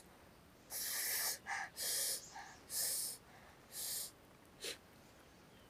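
A person taking short, sharp breaths through the nose and mouth, about six quick sniffs and puffs over four seconds, while peeling and eating a roasted egg.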